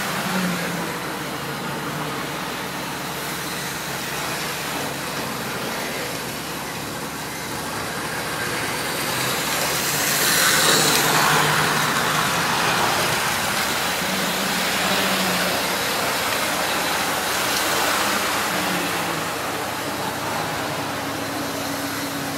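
Hornby model Class 37 locomotive running on a model railway: a steady whirr of its electric motor and wheels on the track, growing louder to a peak about ten seconds in as it passes close, then easing off.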